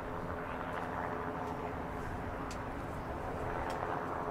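Steady drone of heavy engines running, a constant low hum with a few faint high ticks over it.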